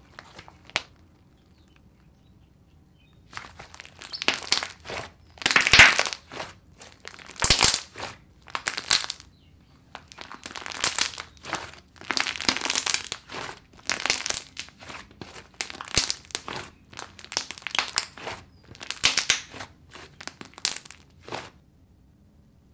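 Hands squeezing and kneading a thick, fluffy slime, giving a run of short, irregular crackling squishes that starts a few seconds in and stops near the end.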